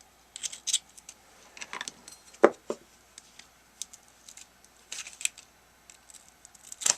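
Scattered light clicks and rattles of small plastic parts being handled and fitted into the open housing of a Ryobi HP53L cordless screwdriver, with a sharper click about two and a half seconds in.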